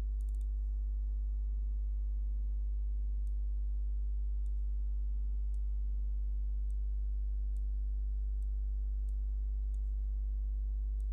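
Steady low electrical hum, with faint computer-mouse clicks: a quick few at the start, then single clicks about once a second.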